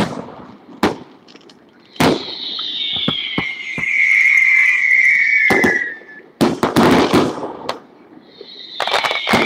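Fireworks finale: sharp aerial shell bangs in clusters, the densest run about six to seven and a half seconds in. A long high whistle slides down in pitch between the bursts from about two to six seconds, and another begins near the end.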